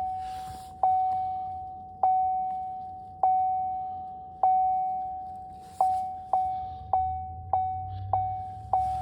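Vehicle warning chime dinging over and over: a single ringing tone, struck and fading away each time. It comes about once a second at first and quickens to about twice a second near the end.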